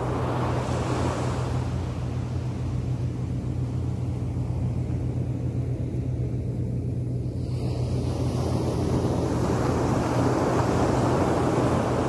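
Small sea waves washing onto a sandy beach: the surf swells near the start, falls back for several seconds, and swells again from about eight seconds in. A steady low hum runs underneath.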